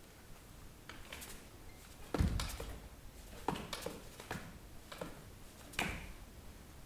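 Movement noises of two dancers seated on chairs: irregular soft slaps and knocks of hands on thighs and bodies shifting on chairs, about nine in all, the loudest about two seconds in and another near six seconds, over quiet room tone.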